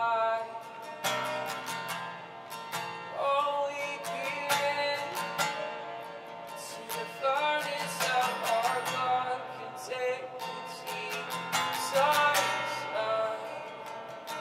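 Acoustic guitar strummed in a steady rhythm, with a voice singing or humming over it.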